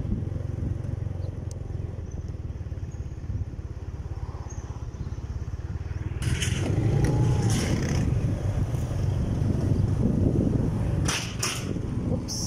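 Motorcycle engine running on the road with road noise, getting louder about halfway through, with two short rushes of hiss, around the middle and near the end.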